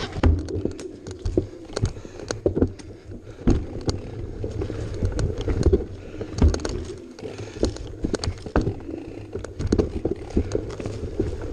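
Off-road vehicle engine running steadily on a rough trail, with frequent irregular knocks and clunks from the rough ground.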